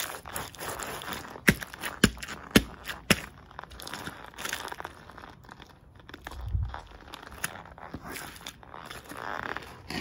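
Rubber soles of Nike Air Force 1 Mid sneakers grinding and stepping on mashed bananas on concrete, a wet crunching and crackling. About a second and a half in come four sharp clicks about half a second apart, the loudest sounds, and a low stomp thud follows about six and a half seconds in.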